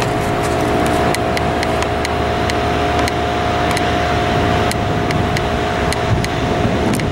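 Bombardier Dash 8 Q400's twin turboprop engines running at high power for the takeoff roll, a steady drone with a held tone, propellers spun up.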